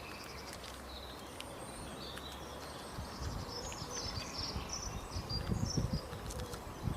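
Outdoor ambience: many short, high-pitched chirps over a steady background noise, with low rumbling coming in about halfway and growing stronger near the end.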